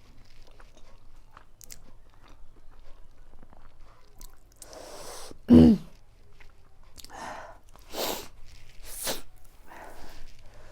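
A person eating very spicy noodles: soft chewing and small mouth clicks, then one sudden loud throat sound about halfway through, followed by several sharp, hissing breaths.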